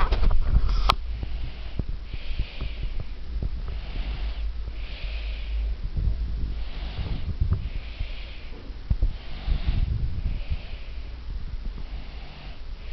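Baby snoring in its sleep: soft, noisy breaths about every second and a half over a low rumble, with one sharp click about a second in.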